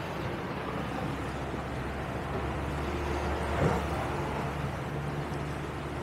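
Outboard motor running steadily as the boat travels fast over choppy water, with water rushing past. A single thump about three and a half seconds in.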